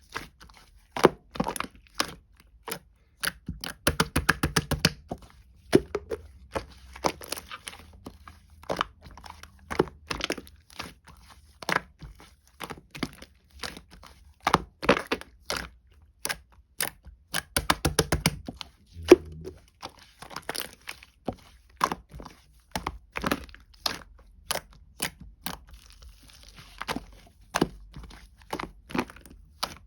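Pearl slime being pressed, folded and poked by hand, giving irregular sharp clicking pops about once or twice a second, with quick flurries of crackling clicks about four seconds in and again around eighteen seconds.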